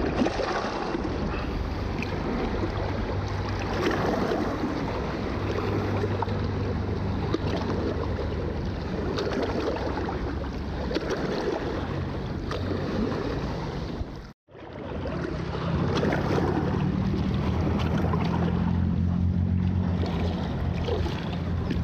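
Wind on the microphone over lake water lapping at a rocky shore, with a steady low engine hum, likely a passing motorboat, that is strongest in the last few seconds.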